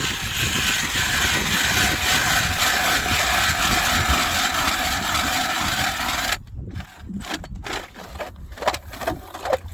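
Ice auger drilling a hole through the ice: steady loud noise that stops suddenly about six seconds in, followed by a scatter of knocks and clatter.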